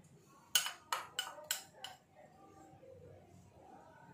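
A spoon clinking against a bowl five times in quick succession, about a second in, as chaat masala is sprinkled over the fruit chaat.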